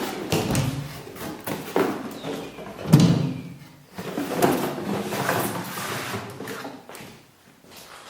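Knocks, scrapes and clatter of things being handled and moved as a wardrobe is emptied, with a heavy thud about three seconds in.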